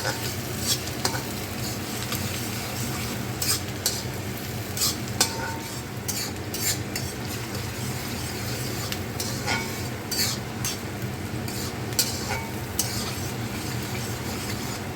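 Chopped garlic, onion and chilies sizzling in hot oil in a heavy-bottomed karahi while being stirred, the utensil clicking against the pan every second or so.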